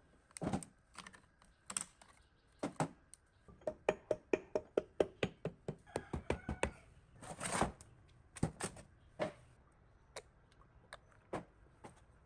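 Light, irregular metal clicks and taps from hand work on the water pump's parts, with a quick run of clicks a few seconds in and a louder scraping knock about halfway through.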